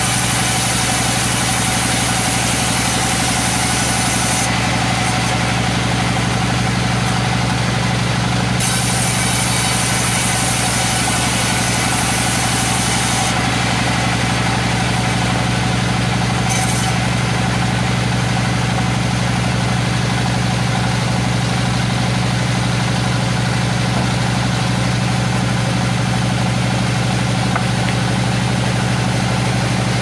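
Sawmill band saw running with a steady low drone while a coconut-wood plank is fed through the blade. A high hiss of the cut comes and goes in stretches.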